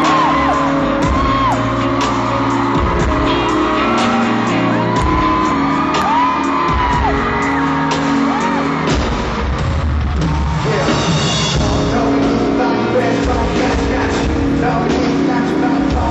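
Loud live music in a large hall, with high shrieks and whoops from the audience rising and falling over it.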